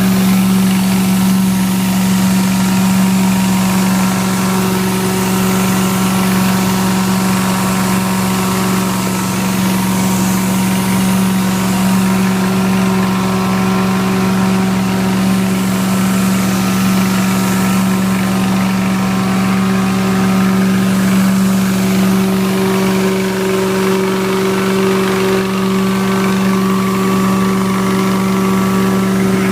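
Rotary carpet extractor running steadily, a loud constant hum with a hiss of air.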